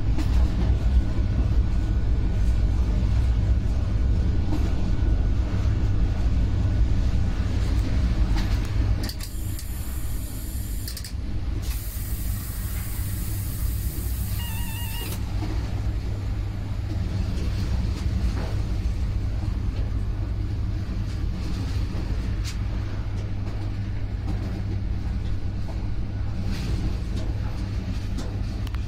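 Intercity train hauled by a V63 six-axle electric locomotive running along the line, a steady low rumble of wheels and running gear that drops in level about 9 seconds in. Two stretches of hiss follow over the next several seconds, with a brief run of short beeps near their end.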